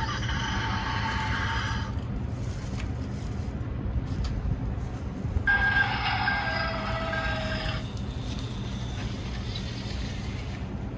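Two spells of electronic pitched tones, each about two seconds long, the second starting about five seconds in and stepping down in pitch partway through, over a steady low rumble.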